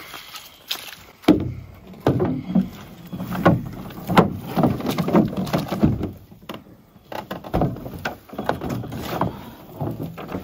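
Irregular knocks and thuds of a Keewaydin 16 canoe being set down at the water's edge and loaded, with paddles and gear bumping against the hull.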